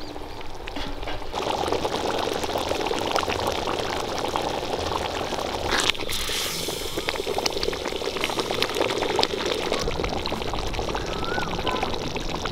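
Thick curry bubbling at the boil in a wide aluminium pot, a steady stream of small pops and blips, with a ladle stirring through it about six seconds in.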